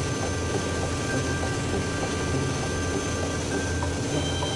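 Steady low drone of a fishing boat's engine, with faint background music of long held notes over it.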